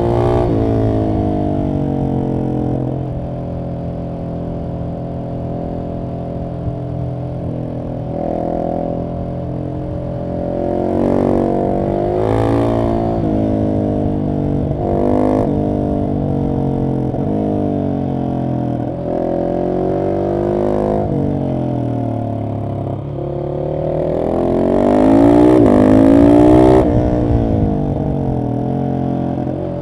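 Husqvarna 701 SM's single-cylinder engine through a de-catted Arrow exhaust with the dB killer in, under riding load. The pitch climbs and drops again and again as the throttle opens and closes, with the loudest, highest-revving run about 25 seconds in.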